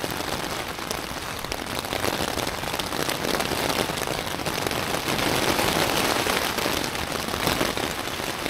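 Steady rain falling on a tent, heard from inside.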